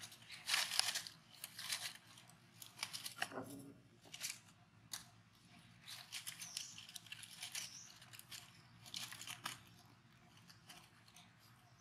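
Dry leaves rustling and crackling in irregular bursts as baby macaques scramble over the leaf litter, with a short falling squeak about three seconds in.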